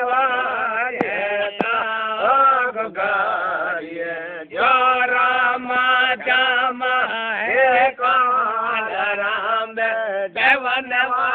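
A man's voice chanting in a sing-song, wavering melody, with a brief pause about four seconds in. A steady low drone runs underneath.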